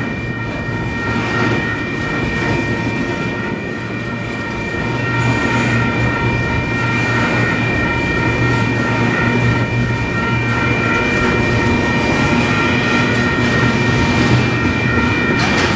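Double-stack container freight cars rolling past at a grade crossing: a steady rumble and clatter of steel wheels on rail, with a few steady high ringing tones held over it. It grows a little louder about five seconds in.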